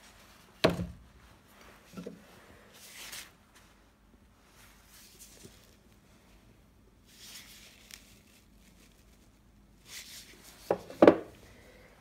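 Knives with freshly fitted handle scales knocking onto a wooden workbench as they are picked up and laid out, with the paper towel wrapped around the blades rustling in between. One sharp knock comes early, a lighter one follows, and the loudest knocks fall near the end.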